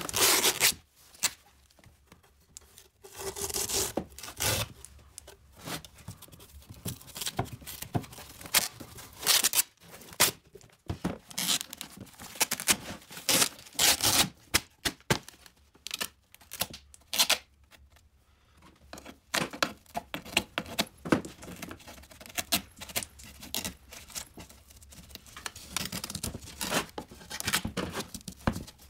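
Gloved hands brushing, rubbing and prying at an old wooden gramophone case, making irregular scraping and tearing noises in short strokes with brief pauses.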